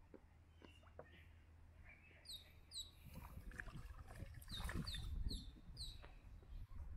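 A bird chirping, a series of short, high, falling notes about two seconds in and again from about four and a half seconds in, over a faint low rumble.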